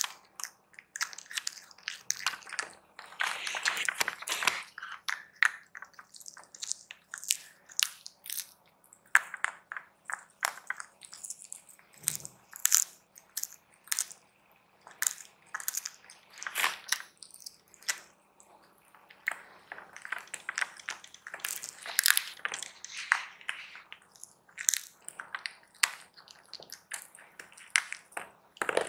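A silver Bengal cat biting and chewing a hard strip of dried cod: a fast, irregular run of crisp crunches and cracks with brief pauses between bouts of chewing.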